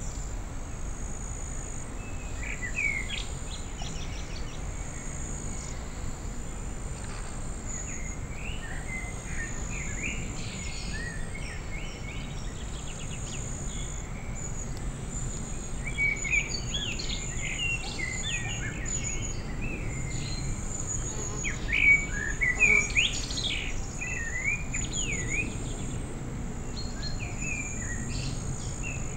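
Small wild birds chirping and singing in short, quick phrases, busier and louder in the second half, over a steady high-pitched trill and a low background hum.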